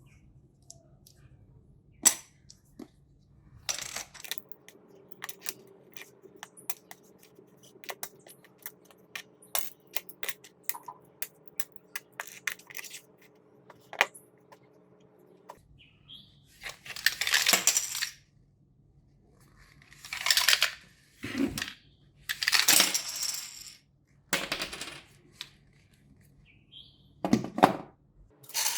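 Small plastic chess pieces clicking and clinking as they are handled and set down, many quick light clicks. About halfway through they give way to several bursts of crinkling rustle, each a second or two long.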